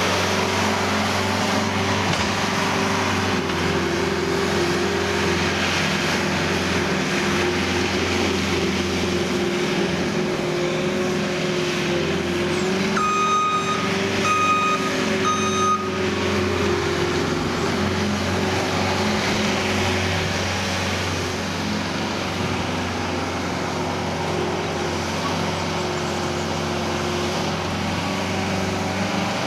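Skid-steer loader's diesel engine running steadily while working. About halfway through, three short electronic beeps sound about a second and a half apart.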